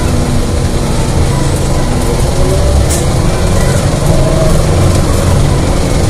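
Riding inside a 2018 Gillig Low Floor 29-ft CNG bus under way: steady low engine and road rumble, with a faint whine rising about halfway through and a few light rattles.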